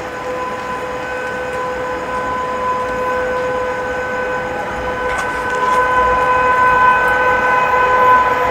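Approaching electric locomotive sounding a long, steady horn blast that grows louder over the last few seconds as the train nears.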